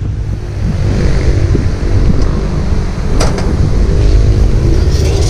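Wind buffeting a handlebar action camera's microphone while cycling along a paved bike lane: a steady low rumble, with a single sharp knock about three seconds in.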